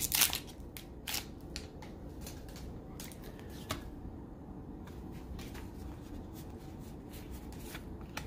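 Foil booster-pack wrapper crackling briefly at the start, then Pokémon trading cards being handled and slid against each other, with scattered soft clicks and rustles.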